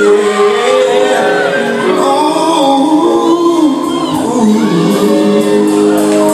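Live music: a male singer singing into a microphone over band accompaniment, holding long notes that bend in pitch.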